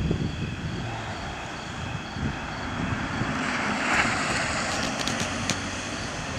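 A grass and brush fire burning: a low rumbling hiss that swells louder about four seconds in, with a few sharp pops just after, mixed with wind on the microphone. Faint, evenly repeating high insect chirps run underneath.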